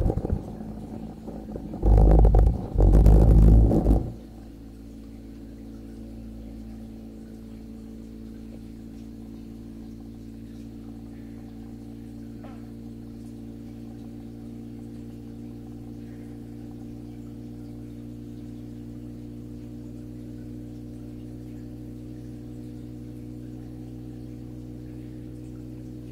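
A moth fluttering against the audio recorder's microphone: loud, rough flapping bursts in the first four seconds, much louder than anything else. After that a steady low hum of several fixed tones carries on.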